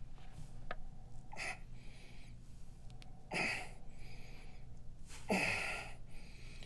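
Three breathy gasps from a person, about two seconds apart, over a low steady hum.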